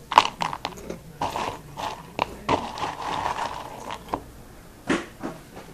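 A mouthful of Flamin' Hot Crunchy Cheetos being crunched and chewed close to the microphone. A quick run of sharp crunches comes first, then softer chewing, with a few more crunches near the end.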